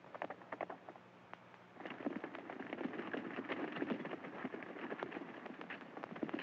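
Several horses galloping: a dense clatter of hoofbeats that starts abruptly about two seconds in, after a few scattered clicks, over the hum and crackle of an old film soundtrack.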